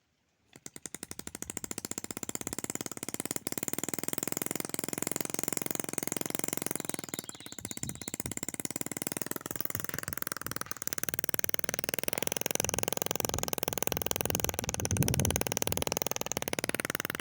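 Small homemade two-stroke engine, converted from a refrigerator compressor, running fast with a rapid, even buzz. It starts suddenly about half a second in; its speed sags about halfway through, picks back up, and drops again near the end.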